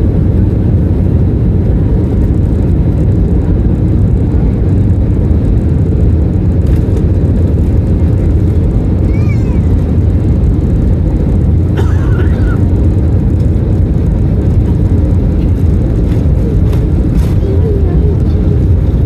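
Steady low rumble of engine and airflow noise inside the cabin of an Airbus A321 airliner.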